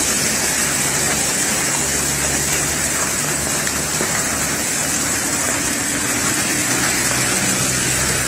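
Heavy rain mixed with hail falling on parked cars and wet pavement, a steady dense hiss with no pauses.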